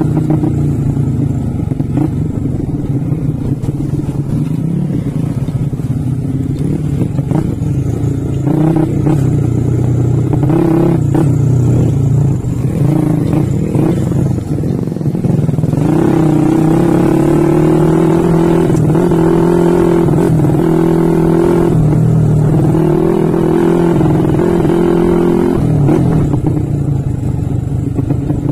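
Trail motorcycle engine running under load, its note rising and falling with the throttle. From about halfway in it holds higher and steadier, broken by several brief dips.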